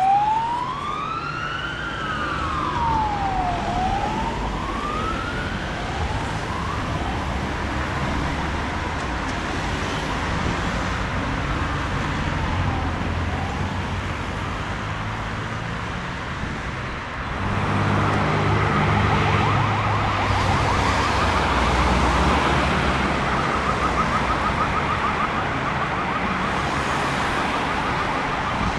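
Emergency vehicle siren on a slow wail, pitch sweeping up and down about every two seconds and fading away within the first several seconds. About seventeen seconds in, another siren starts on a fast yelp and carries on, over the low hum of road traffic.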